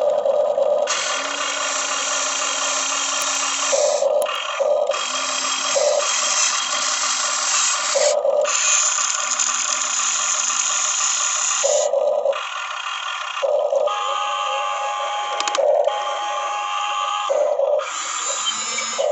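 Huina RC excavator's small electric motors and gearboxes whining as the arm, bucket and swing are worked, each motor run lasting a few seconds before another takes over.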